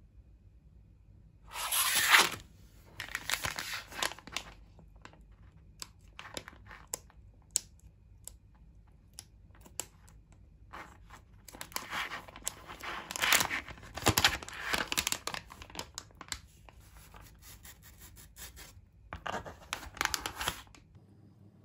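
Foil-lined plastic sheet-mask pouch being handled, crinkled and torn open along its top strip by hand, in several rustling bursts with sharp crackles, the loudest about two seconds in.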